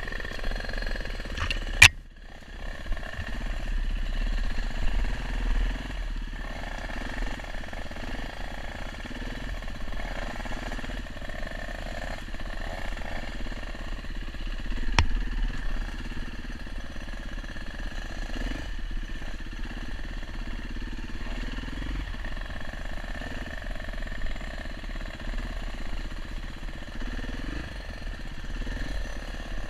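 Dirt bike engine heard close up from a camera on the bike, revving up and down as it rides a tight trail, with a sharp click about two seconds in and another about halfway.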